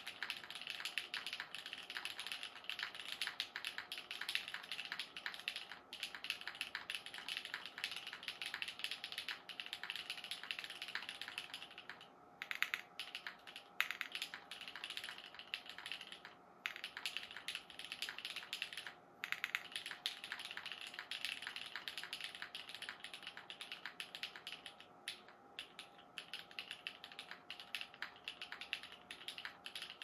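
Fast, continuous typing on a Kalam Keycult 2/65 clone, a 65% mechanical keyboard with a flex-cut plate and Kailh stemmed vintage black linear switches: a dense clatter of keystrokes with a few brief pauses in the middle, stopping just at the end.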